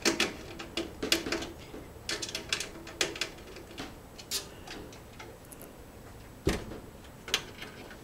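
Irregular small metallic clicks and taps of screws and tools being worked against a steel computer case while the motherboard is fastened down, with a couple of sharper knocks in the second half.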